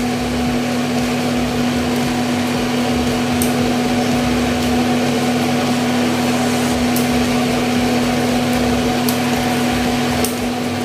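Steady hum of a running induction cooktop, its cooling fan and a constant pitched tone, as it heats an idli steamer. A few faint light clicks sound over it.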